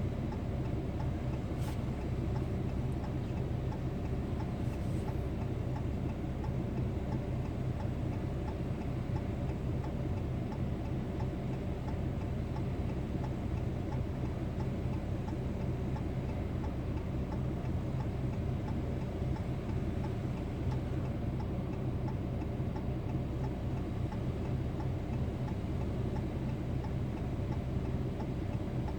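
An engine idling steadily, a fast even ticking pulse.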